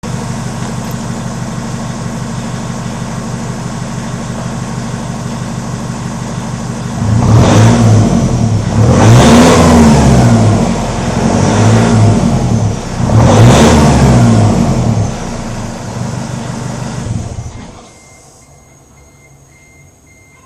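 Nissan Navara D22 pickup's engine idling steadily, then revved up four times in quick succession before settling back. About three seconds before the end the engine sound stops abruptly.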